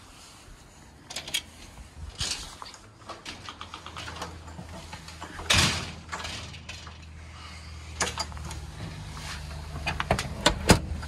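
A house door being handled: scattered knocks and clicks, with a louder thump about halfway through and a quick cluster of latch clicks near the end as a white panel door swings open. Under them runs a low steady rumble.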